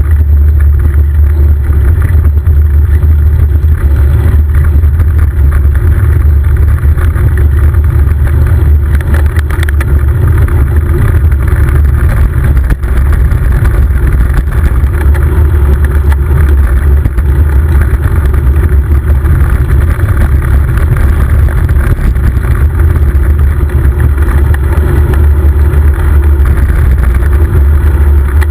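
Steady, loud wind rumble on the microphone of a camera riding along on a moving bicycle.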